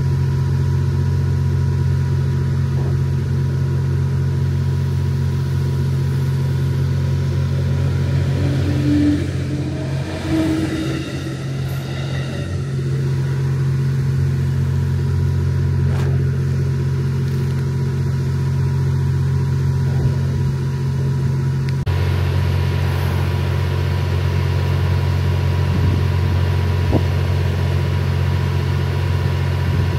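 The Twilight Express Mizukaze's (JR West 87 series) diesel generator engines running steadily at rest, a low even hum. Around ten seconds in, a short whine glides up and down in pitch, and the engine note changes abruptly about 22 seconds in.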